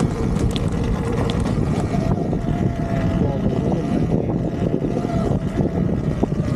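Sur-Ron Ultra Bee electric dirt bike being ridden on a dirt trail: a steady motor whine over a continuous rumble of drivetrain and tyre noise.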